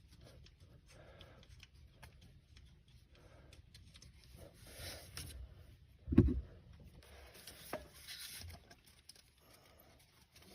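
Quiet scraping, rubbing and light metallic clicks of hands and tools working a car's starter motor free, with one dull thump about six seconds in.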